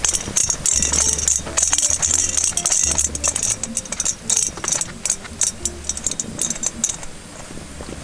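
Background music with deep bass notes, a short melody and a shaker-like rattle, ending about seven seconds in.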